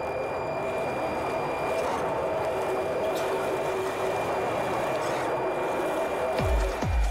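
Radio-controlled car's electric motor and gears running with a steady whir and a few constant tones, slowly getting louder. Electronic dance music with a heavy kick-drum beat comes in near the end.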